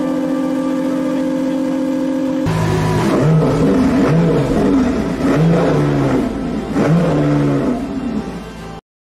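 Lamborghini Sian FKP 37's V12 engine idling steadily, then blipped in a series of sharp revs that rise and fall in pitch. The sound cuts off abruptly near the end.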